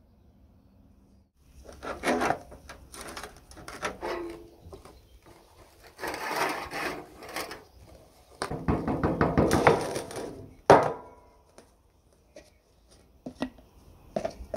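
Irregular rubbing and scraping of hands working a folded sheet of paper with iron filings on it, with one sharp knock about eleven seconds in.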